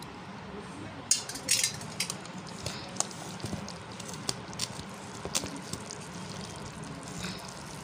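A hand mixing pounded rice flour with a wet, cooked rice-flour paste in a steel vessel for appam batter: irregular soft squishes and small clicks over a low steady hum.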